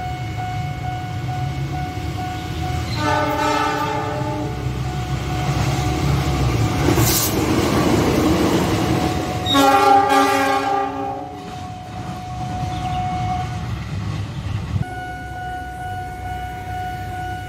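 Diesel locomotive sounding two long horn blasts, about three seconds in and again near the ten-second mark, with its engine rumble and the rush of wheels on rail loudest between them as it passes close by. A steady electronic level-crossing alarm tone sounds underneath.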